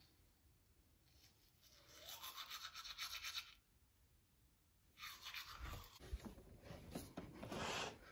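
Electric toothbrush buzzing against teeth in two stretches, from about two seconds in and again around five seconds. Near the end come a few knocks and a rush of noise.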